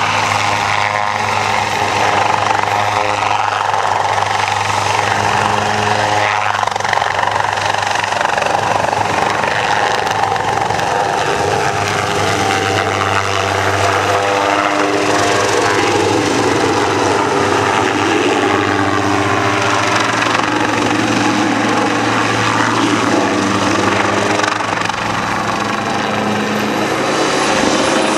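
Light helicopter with a two-blade main rotor flying low, its engine and rotors running with a steady drone that shifts slowly in pitch as it manoeuvres.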